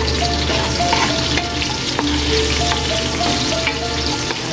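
Sliced ginger, garlic and onion sizzling in hot oil in a metal wok, stirred with a wooden spatula that scrapes and now and then taps the pan. A faint melody of short notes runs underneath.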